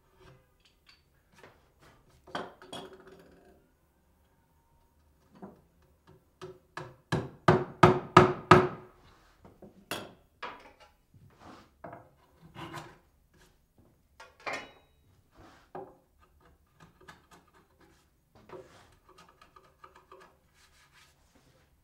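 Wooden peg being driven into a bored hole through a mortise-and-tenon joint: sharp knocks on wood, with a fast run of blows about seven to nine seconds in that is the loudest part. Then come scattered lighter knocks and scraping as a chisel works at the joint.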